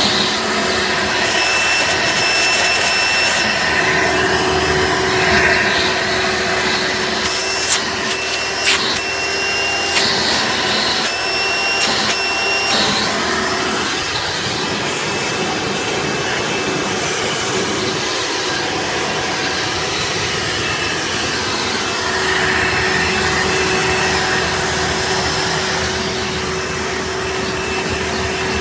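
Hoover Sprint upright vacuum cleaner running steadily, a high whine above the motor noise coming and going. A few sharp knocks land about a third of the way through.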